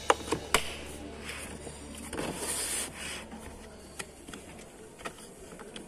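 Hard plastic tool carrying case handled and turned over on a workbench: a few sharp plastic knocks in the first second, then a brief scrape about two seconds in, over a low hum.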